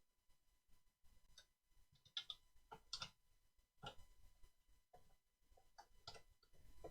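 Faint, irregular clicks and scrapes, about half a dozen, from the hardware holding the tape-measure Yagi's driven element being tightened down by hand.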